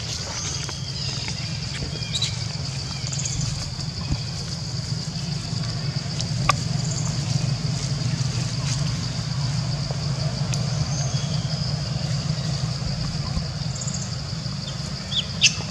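Steady outdoor background: a continuous high-pitched drone over a low rumble, with a few short faint chirps and sharp clicks, the loudest clicks about six and a half seconds in and near the end.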